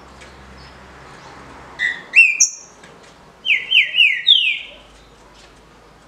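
Green-winged saltator (trinca-ferro) singing a short, loud whistled phrase. Two upward-hooked notes come about two seconds in, then four quick downslurred whistles, the last one starting highest.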